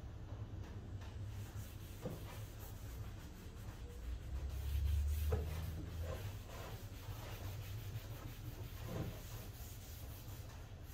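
Faint rubbing of an oil-soaked rag along a sanded wooden axe handle as decking oil is wiped on, over a steady low hum. A low rumble swells briefly about halfway through.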